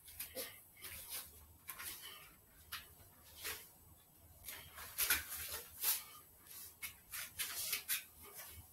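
Irregular short hissy swishes from a man shadowboxing in a boxing glove, a few louder ones about five and six seconds in.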